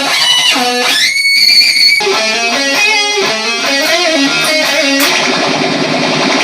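Electric guitar playing, with a note that slides sharply up in pitch about a second in and holds high, then a stretch of wavering notes, then dense strumming from about five seconds in.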